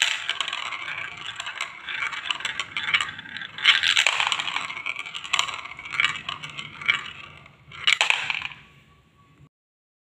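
Small plastic balls rolling round clear plastic funnel bowls of a marble run, a continuous rattling whir full of quick clicks, with louder clatters about 4, 6 and 8 seconds in as balls drop through the spout into a toy dump truck's pile of balls. It dies away near the end.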